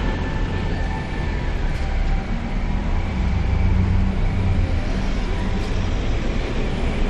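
Steady city street noise with a continuous low rumble of traffic.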